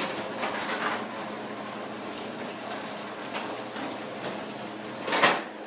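Stanley 1/3-horsepower Deluxe chain-drive garage door opener running as it closes the door, with a steady run of small clicks from its slightly loose chain. One loud thump about five seconds in.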